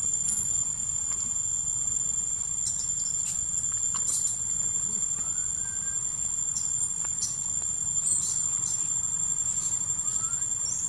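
Steady high-pitched drone of insects in tropical tree canopy, with scattered short high chirps and a couple of brief rising whistles over a low rumble.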